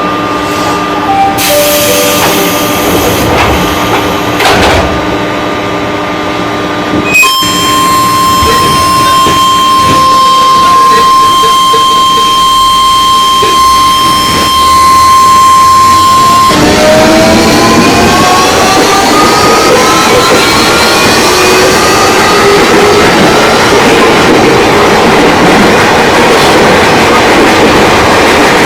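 Ex-JR 205 series electric commuter train pulling away: after a click about seven seconds in, a steady whine holds, then past the halfway point a stack of whining tones rises steadily in pitch as the traction motors accelerate, over growing rail noise. The rising whine is unusual for a 205, and the uploader wonders whether its motors have been changed.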